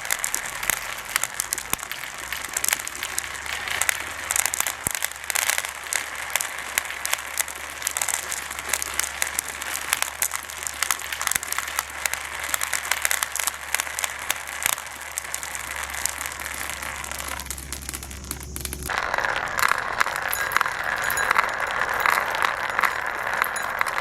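Many marbles rolling and clattering down a marble run: a dense, steady stream of small clicks and clacks over a low rolling rumble. The rumble stops about 19 seconds in, and the clicking then turns brighter.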